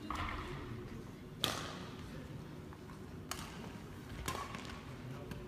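Badminton rackets striking a shuttlecock during a rally: three sharp hits, the first about a second and a half in and the loudest, echoing in a large sports hall.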